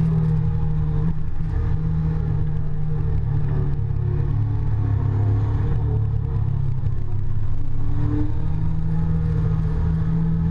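Yamaha FZ8's inline-four engine running at steady part throttle, heard from a camera mounted on the bike. The engine note dips a little about a second in and climbs again near the end.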